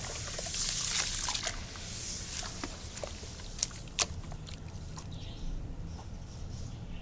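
Wet black concrete pouring into water, a hissy, sloshing trickle with scattered sharp clicks. It is strongest for the first two seconds or so, then dies down to a softer fizz with two louder clicks about three and a half seconds in.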